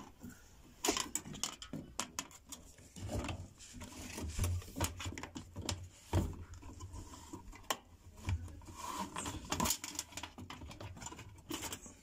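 Irregular clicks, taps and rubbing of a wire retaining ring being stretched and worked into place around the rubber door boot of an LG front-load washer.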